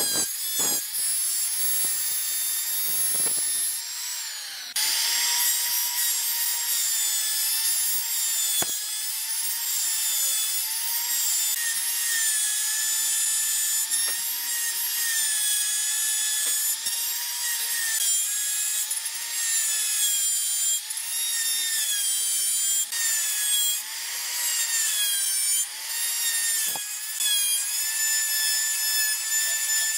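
Electric plunge router running at high speed and cutting hardwood: a high whine that sags and recovers in pitch as the bit bites into the wood, with chips spraying off the cut.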